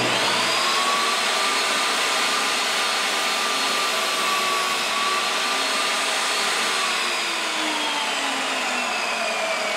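Chicago Electric benchtop table saw switched on, its motor whining up to speed and running steadily while the end of a thin wooden strip is test-cut. Its pitch slowly sinks over the last few seconds.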